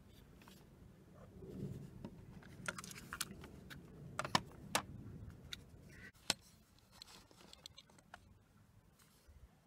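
Hands handling a plastic cassette case: a string of sharp plastic clicks and taps, loudest about four and six seconds in, as the case is opened and its paper insert and cassette are taken out, over soft rubbing and handling noise.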